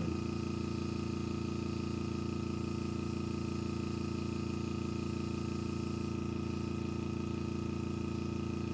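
Small air compressor feeding the airbrush, running with a steady, even hum and a fast pulse.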